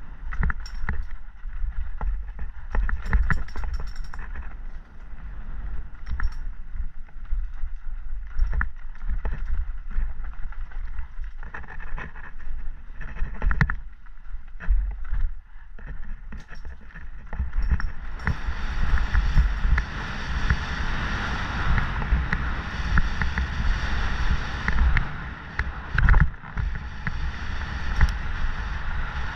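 Mountain bike descending a dirt trail: wind rumbling on the camera microphone, with the tyres crunching over dirt and the chain and frame clattering over bumps. From about 18 seconds in a louder, steadier rolling hiss as the tyres run over rougher, stonier ground.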